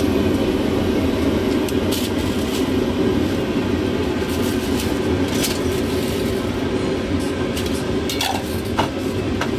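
Steady low rumble of a busy hawker stall, with a few sharp metal clinks of utensils against bowls and the noodle pot.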